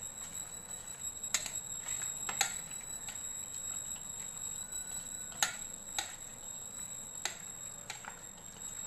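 A hand mixing marinated chicken pieces in a ceramic bowl: about six irregular sharp clicks as the hand knocks against the bowl, over soft handling noise. A faint steady high-pitched whine runs underneath.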